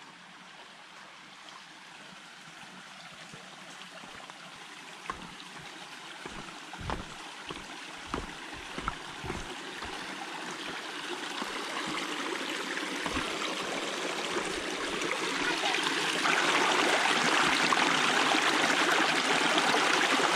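A steady rush of running water that grows gradually louder, with a few soft low knocks in the middle.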